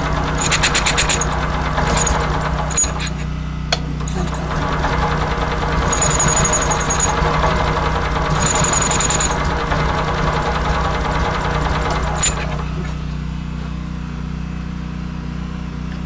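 Generator engine running unevenly on a cold start, surging louder several times before dropping back to a lower, steadier drone near the end. It won't keep running, which the owner puts down to the fuel pump not delivering fuel, perhaps from an electrical fault.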